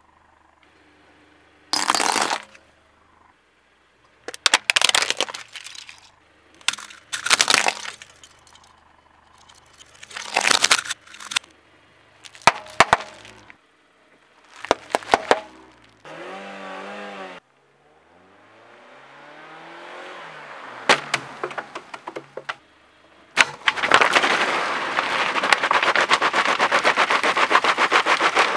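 A car tyre rolling over objects on asphalt and crushing them: a run of separate cracks and crunches every two or three seconds, then a short squeal about halfway through. Near the end comes a long, dense crackle as a plastic bottle and its wrapping are flattened under the tyre.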